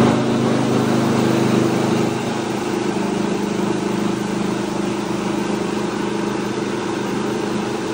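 Small electric rice-hulling mill running steadily: a hum of motor and rollers over the rush of paddy and husk pouring through it as red paddy is hulled.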